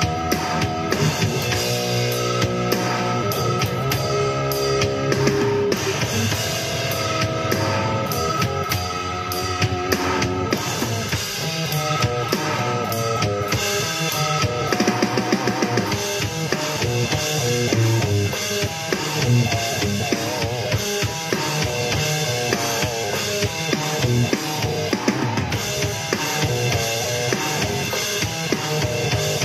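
Metal music: electric guitar over a full drum kit with bass drum and snare, playing without a break.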